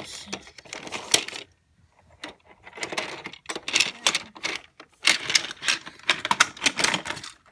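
Die-cast metal toy trains clicking and clattering as they are handled and moved, in quick irregular taps, with a short pause about one and a half seconds in.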